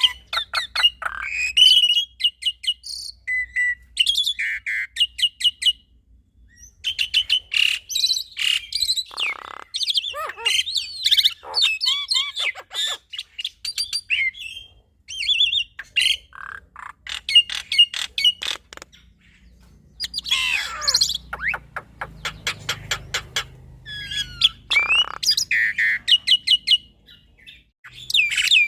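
A male black-winged starling and a female Javan myna singing in a duet: a fast, varied stream of chattering notes, rapid clicks and whistled glides, broken by short pauses.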